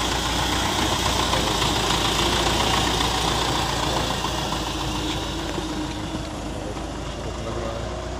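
Diesel tractor engine running as the tractor drives close past and pulls away, growing fainter in the second half.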